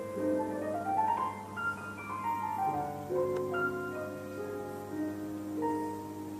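Piano music played back through ACR RP-300 hi-fi loudspeakers, with a quick run of notes climbing about a second in and another falling away after it.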